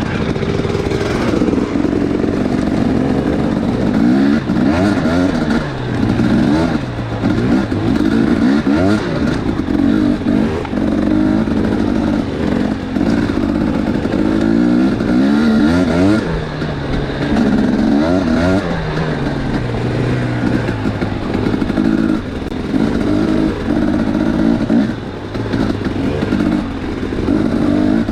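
250cc two-stroke dirt bike engines revving hard on a trail ride, the pitch rising and falling again and again as the riders throttle on and off.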